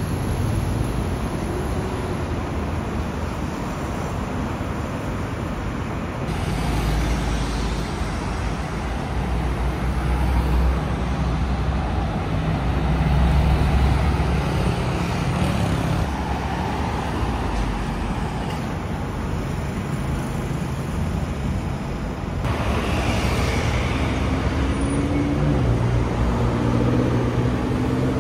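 Busy city-street traffic, cars driving past one after another. A deep engine rumble from a Mercedes G-Class SUV passing is loudest about halfway through.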